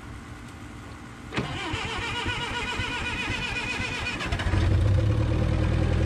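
Propane-fuelled Hyster 60 forklift engine being started. A click about a second and a half in, then the starter cranks for about three seconds. The engine then catches and runs steadily, noticeably louder.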